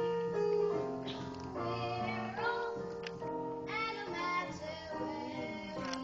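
Children singing a musical-theatre song with instrumental accompaniment: voices holding and sliding between sustained notes.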